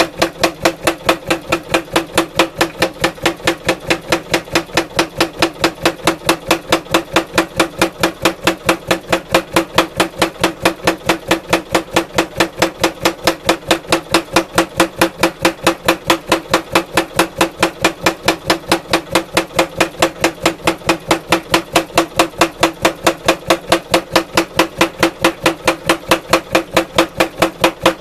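Power hammer with a 16-kilo hammer head striking in a fast, even rhythm of several blows a second, drawing a wootz steel ingot out into a bar. Each blow rings with a steady tone.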